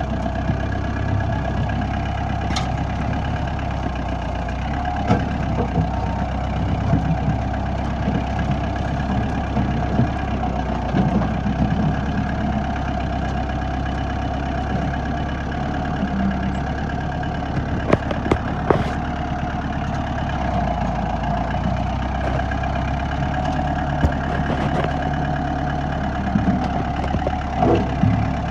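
Compact tractor engine running steadily while working through brush, with a few sharp knocks and cracks scattered through it.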